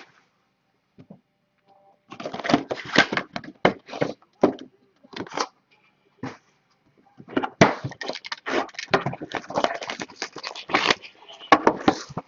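Plastic wrapper crinkling and tearing as a trading-card box and its packs are opened, in two spells of crackling with a pause of about two seconds between.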